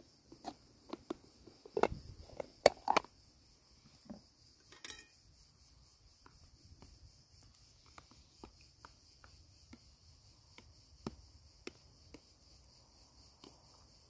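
Crickets trilling in a steady chorus, with scattered light clicks and knocks over it, the loudest of them between about two and three seconds in.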